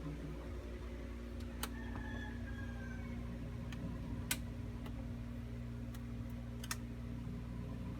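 A steady low hum, with a few sharp, scattered clicks and a faint falling whistle about two seconds in.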